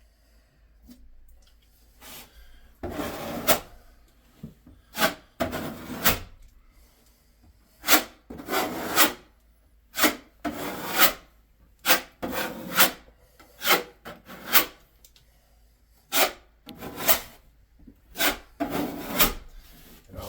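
A spreading tool scraping sealant over the seams and fastener heads of a foam shower backer board, in about a dozen irregular rasping strokes that begin about two seconds in.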